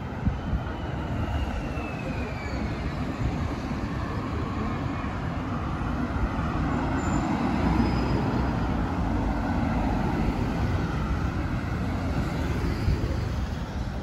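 Street traffic going by on a multi-lane city road, cars passing with a low rumble that swells about halfway through as a car goes by close.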